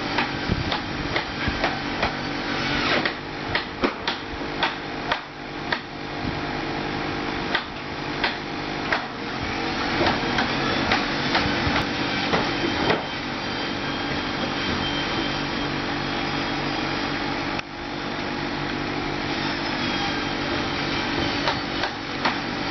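A digging tractor's engine running steadily, with frequent sharp clanks and knocks from the digging work, thickest in the first half and sparser after.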